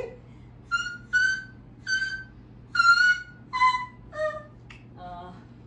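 A woman singing a string of short, very high notes, each under half a second, the first several at about the same pitch and the last few stepping lower. She is reaching for the top of her range, for notes she can normally never hit.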